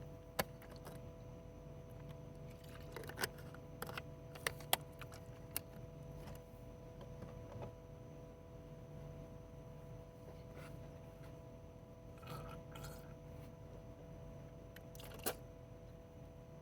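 Scattered faint clicks and knocks from small objects being handled, over a steady low electrical hum.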